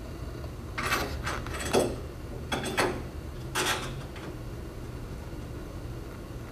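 A metal door handle set knocking and clicking against the door edge as it is fitted back in place: a few sharp clacks within the first four seconds, then only a low steady hum.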